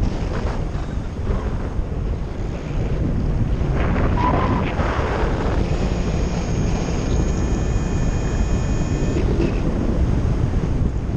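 Airflow of paraglider flight buffeting the camera microphone: a steady low rumble of wind noise. A faint, steady high tone sounds for about three seconds past the middle.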